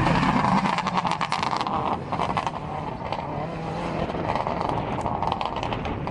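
Subaru Impreza rally car at full throttle, passing and pulling away, its flat-four engine note slowly fading as it goes. Quick crackles run through the engine sound.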